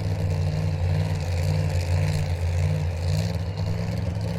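An engine running steadily with a deep, even drone that wavers slightly in level, without clear revving up or down.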